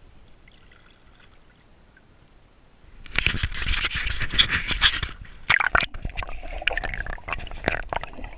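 Water sloshing and splashing around a camera as it is dipped at the surface and then under water, starting suddenly about three seconds in, loudest for the first two seconds, then going on with scattered sharp knocks.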